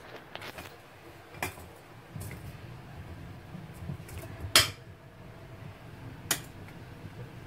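A metal spoon and enamel bowl clinking as chocolate pieces are stirred in a double boiler: three sharp clinks, the loudest about halfway through, over a low steady rumble.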